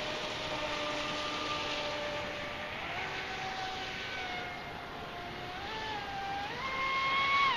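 Brushless electric motor of a Traxxas Spartan radio-controlled speedboat, running on a 6-cell LiPo pack, whining as the boat runs across the water. The pitch holds steady at first, then rises in several steps over the last few seconds, highest near the end, over a steady hiss.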